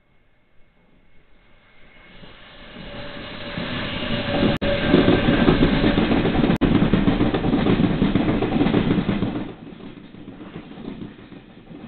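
Taiwan Railways E1000 push-pull Tzu-Chiang express passing through without stopping. The rumble of wheels on rail builds over a few seconds, runs loud for about five seconds as the coaches go by, then drops off sharply.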